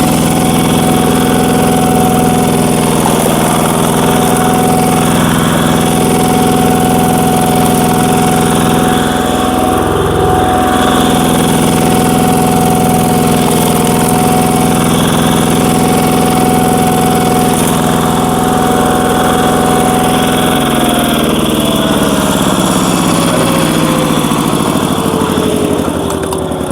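Power tiller's single-cylinder diesel engine running steadily at a fast, even speed while it drives a cone screw log splitter. A little after twenty seconds in, the engine speed falls steadily.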